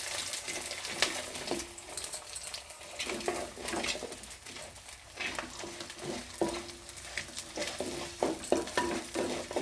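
Oil sizzling in a clay pot as a tempering of chana dal and urad dal fries, with a spoon stirring and scraping against the pot in short repeated strokes.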